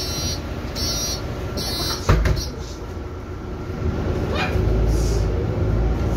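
City bus door-closing warning beeping about once a second, then the doors shut with a sharp knock about two seconds in. The bus's low engine rumble then grows louder as it pulls away.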